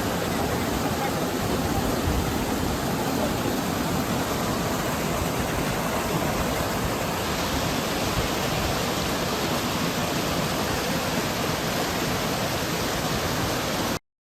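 Steady rush of flowing water, an even noise that cuts off abruptly near the end.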